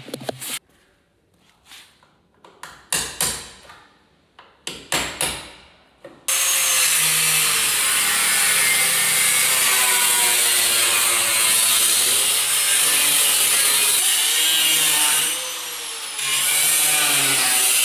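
A few knocks and handling clatter, then from about six seconds in a loud angle grinder cutting into the Range Rover Classic's front body metal. Its pitch dips and recovers as it bites, and it eases off for about a second near the end before cutting again.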